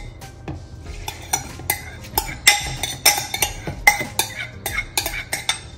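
Kitchen utensils and dishes clinking and scraping against each other: an irregular run of sharp clinks with a short ring, about two a second.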